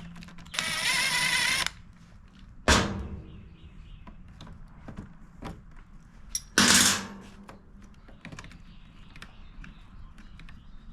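Tool work on a stuck stud in a Predator 2000 inverter generator. A loud whirring-ratcheting burst lasts about a second, then a sharp metallic clank near three seconds in, another loud short burst a few seconds later, and small clicks between.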